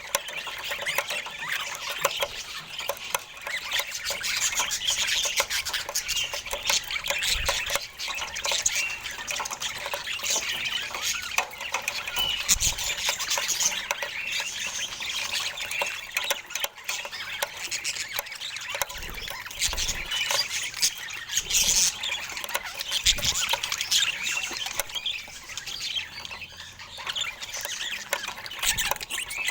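Budgerigars chattering and chirping together, a continuous busy stream of short squawks, chirps and clicks.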